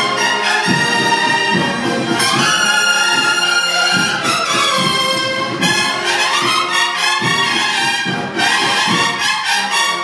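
A Spanish cornet-and-drum band (banda de cornetas y tambores) playing a processional march: massed bugles sounding sustained chords with rising phrases, over a steady drum beat.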